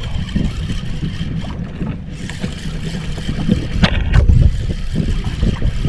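Wind buffeting the microphone over water sloshing against a small outrigger boat's hull, a steady low rumble with scattered thumps. There is one sharp knock about four seconds in.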